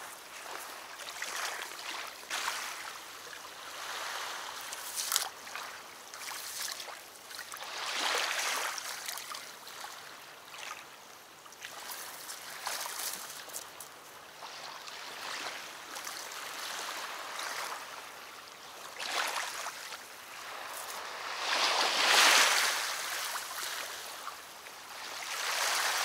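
Small waves lapping at the river's edge, a hiss that swells and fades every few seconds, with a few sharp clicks early on from handling tackle.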